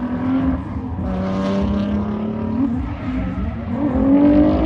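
A drift car's engine revving out on the track. It holds a steady note, climbs briefly, then rises and falls again near the end, over a haze of tyre and track noise.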